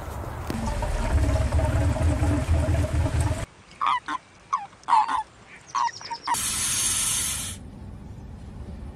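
A low rumble for about the first three seconds. Then come about seven short, honking croaks from common toads, followed by a snake hissing for just over a second.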